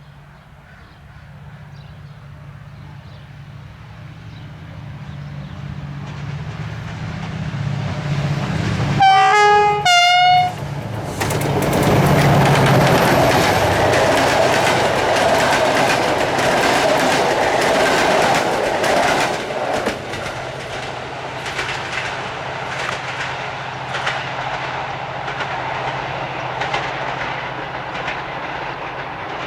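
A GM-type diesel-electric locomotive hauling a passenger train: its engine rumble builds as it approaches, it gives two short blasts of its multi-tone horn about nine and ten seconds in, then it passes with a rhythmic clatter of wheels over jointed rail as the carriages roll by.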